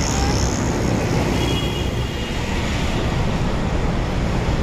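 Steady road traffic noise from vehicles on a busy road.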